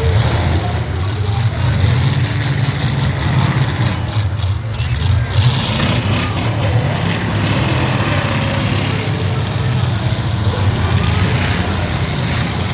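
Demolition derby car engines running loudly and revving, a dense, continuous rumble.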